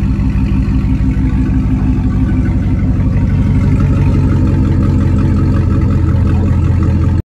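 2016 Camaro SS 6.2-litre LT1 V8 idling steadily through a freshly fitted valveless Borla ATAK axle-back exhaust, with a deep tone. It cuts off suddenly near the end.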